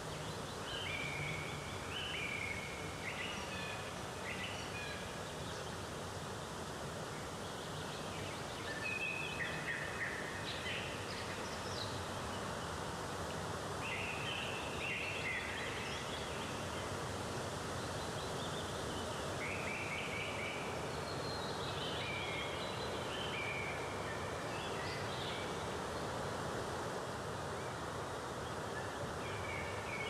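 Steady rush of running water, with birds calling over it in scattered clusters of short, high chirping notes that come and go.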